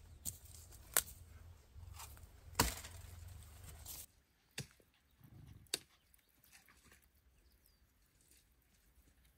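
A few sharp, irregularly spaced knocks or snaps, the loudest about two and a half seconds in; the low background hiss drops away about four seconds in, leaving only a couple more faint knocks.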